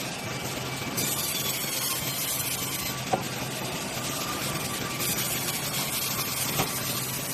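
Log sawmill machinery running with a steady noise, with a couple of sharp clicks.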